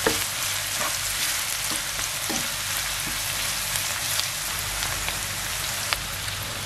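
Sliced onions, green chillies and curry leaves sizzling steadily in hot oil in a frying pan as they are sautéed. A wooden spatula scrapes and knocks against the pan a few times in the first three seconds as they are stirred.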